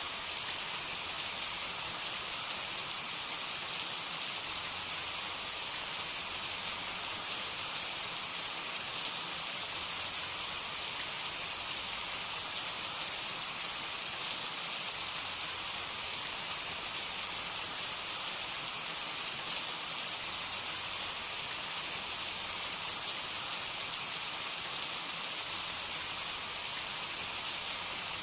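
Cooking oil sizzling steadily in a pan, a dense even hiss with occasional small pops.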